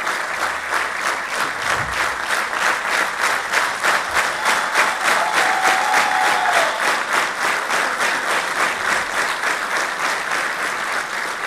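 Audience applauding, the clapping soon falling into a quick, even rhythm clapped together in time.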